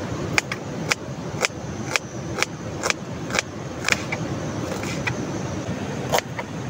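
Kitchen knife slicing an onion on a plastic cutting board: sharp taps of the blade striking the board about twice a second, over a steady background noise.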